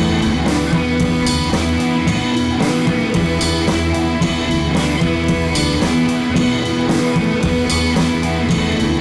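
Background music: a rock-style track with guitar and a drum kit playing steadily.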